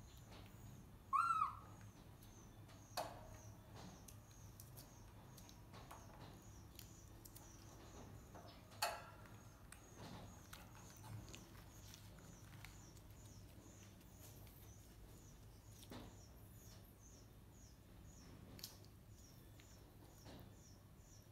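Baby macaque eating lotus seeds: a few sharp clicks and cracks as seeds and husks are handled and bitten, and one short high falling squeal about a second in. Behind it, a faint high chirping repeats about twice a second.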